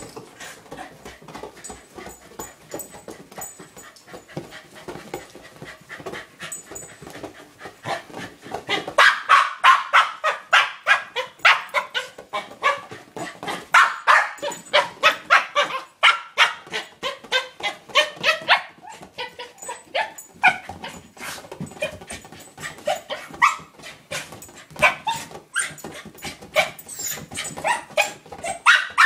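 A corgi barking and yipping in quick repeated bursts, several a second, much louder from about nine seconds in, while it attacks a large inflatable ball.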